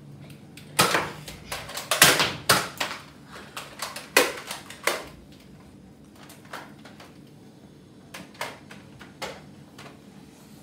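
A series of sharp plastic clacks and snaps from Nerf foam-dart blasters being primed and fired. They come in a quick cluster over the first five seconds, then a few fainter clicks.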